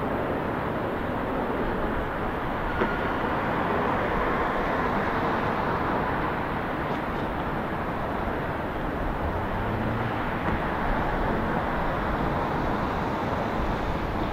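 Boeing 737 jet engines running as the airliner lands and rolls out along the runway: a steady broad roar that swells slightly in the middle.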